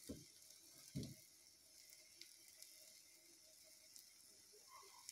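Near silence with a faint, steady sizzle of an egg-and-sausage omelette frying in a pan, and two soft low thumps in the first second.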